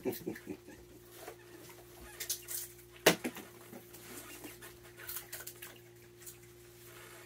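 In-shell peanuts crackling and clicking as they are handled and cracked, with one sharp, louder click about three seconds in, over a steady low hum.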